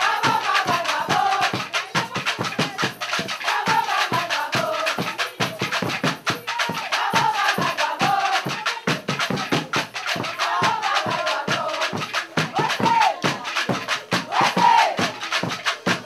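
Carnival music: percussion playing a fast, dense beat, with voices singing short phrases over it every few seconds.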